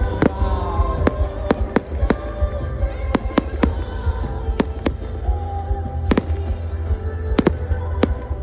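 Fireworks going off in an irregular series of about fifteen sharp cracks, some in quick pairs, over a low rumble, with music playing underneath.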